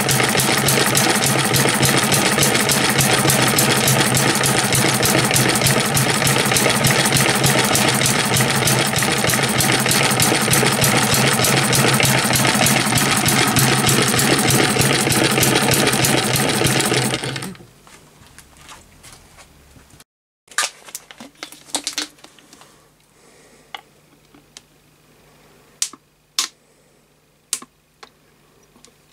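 Model hit-and-miss gas engine running steadily with a fast mechanical rattle as it belt-drives a 12 V DC motor used as a generator; the sound cuts off suddenly about 17 seconds in. After that, only a few sharp clicks and taps.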